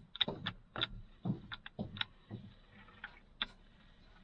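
Irregular clicks and light knocks of plastic and metal parts of an opened Makita drill being handled, several in quick succession early on and then a few scattered ones.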